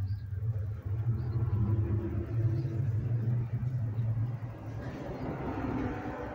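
A low, steady rumble with faint humming tones above it; a hiss swells about five seconds in, then fades.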